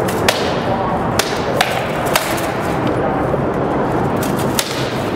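Rattan swords striking shields and armour in SCA armoured combat: a handful of sharp, separate cracks, four in the first two and a half seconds and one more near the end.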